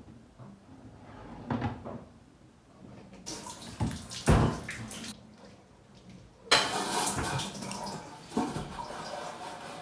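Running water, like a kitchen tap, coming on abruptly twice (once for about two seconds, then again past halfway), with a few knocks and clatter around it.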